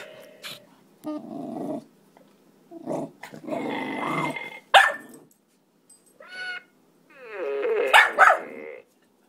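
Small mixed-breed dog growling in play in four short bursts, with a sharp click between the second and third. The last burst slides down and then up in pitch.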